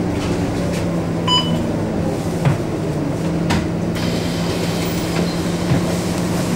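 Cabin noise of a Scania K230UB Euro V city bus on the move: the Scania DC9 engine drones steadily under road and body noise. A short electronic beep sounds about a second in, and there are a few light knocks from the body a little later.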